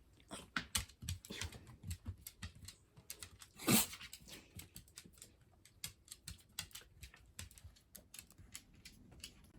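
Pet claws clicking and tapping on wooden flooring, with one sharp, loud sneeze a little under four seconds in.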